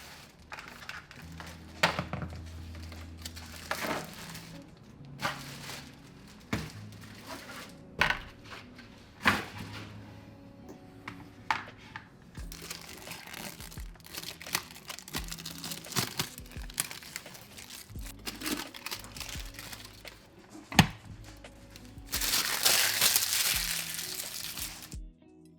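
Packaging of a cordless electric kettle being handled and opened: plastic crinkling, tearing and sharp knocks scattered throughout, with a longer stretch of crinkling near the end, over background music.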